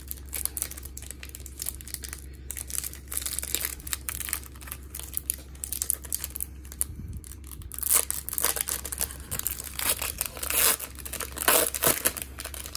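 Foil wrapper of a 2004 Topps baseball card pack being torn open and crinkled by hand, a dense crackle that gets louder in the second half.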